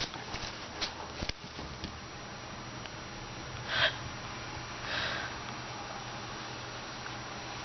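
A rabbit's sneezing fit: a quick run of small sharp sneezes in the first second or so, then a louder sneeze about halfway through and a softer one a second after. The owner puts the sneezing down to a hay allergy.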